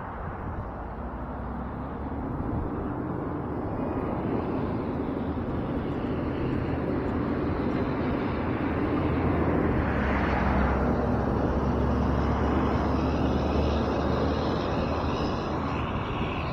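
Motor vehicle traffic passing on the road, a steady rumble and tyre noise that slowly swells to its loudest about ten seconds in and then fades.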